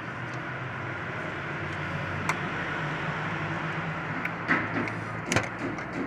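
Hands working among wiring in a car's engine bay, with a few light clicks and one sharper knock about five seconds in, over a steady low hum.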